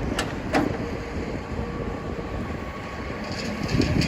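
Excavator's diesel engine running with a steady low rumble, with two sharp knocks in the first second or so.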